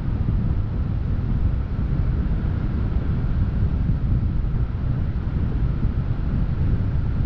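Wind buffeting the microphone: a steady low rumble with no breaks or distinct events.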